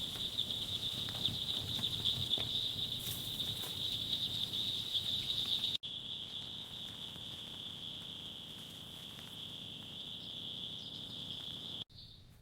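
Steady high-pitched insect trill, cricket-like, over a faint low rumble with a few soft ticks. It breaks off sharply for an instant about six seconds in, resumes a little quieter, and stops near the end.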